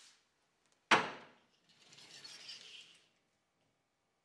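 A sharp click about a second in as the tape measure's hook catches, then a soft hiss lasting about a second and a half as the steel tape blade is drawn out of its case.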